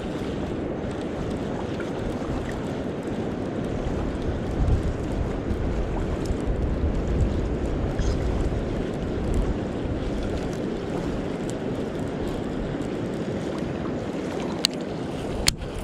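Wind gusting on the microphone over a steady rush of river water while a baitcasting reel is cranked through a retrieve; two sharp clicks near the end.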